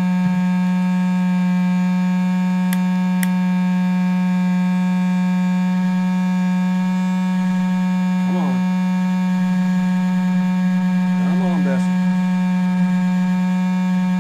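Pipe King pipe-smoking machine's electric air pump running with a loud, steady hum, drawing air through a lit corncob pipe. Two faint clicks come about three seconds in.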